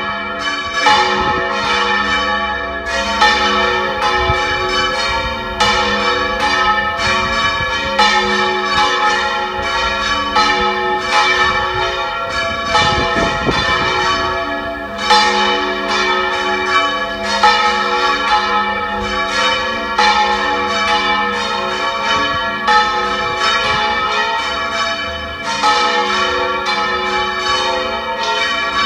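Three church bells of 182, 319 and 512 kg swinging full-circle in the Valencian volteig style, their clappers striking over and over in a continuous, overlapping peal. Wind buffets the microphone, most heavily about halfway through.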